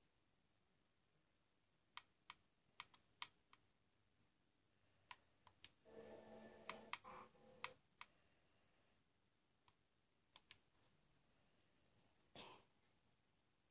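Near silence: room tone with a dozen or so faint, scattered clicks, a brief faint pitched sound about six seconds in, and a short soft rush near the end.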